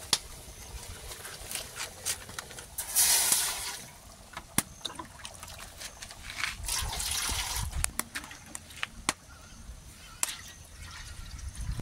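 Water splashing in two bursts of about a second each, among scattered clicks and knocks.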